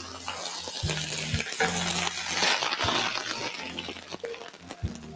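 Garlic-sautéed lettuce leaves sizzling faintly in a hot frying pan as they are scraped out with a utensil onto a plate, with light clinks of metal on the pan and plate. The hiss swells about halfway through.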